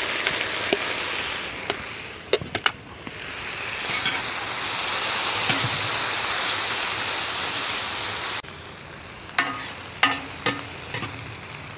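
Tomatoes and vegetables sizzling in a hot cast-iron skillet, with scattered clicks and knocks. The sizzle dips briefly a couple of seconds in, swells again, then drops sharply to a quieter sizzle about eight and a half seconds in.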